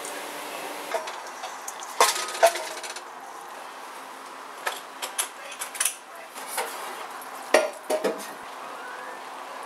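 Cooking utensils knocking and scraping against metal cookware: irregular separate clinks, some with a brief metallic ring. The loudest come about two seconds in and again near the end.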